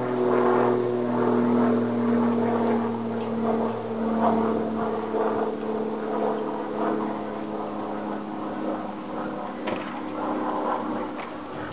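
An engine running steadily, its pitch holding nearly level, with a brief click near the end.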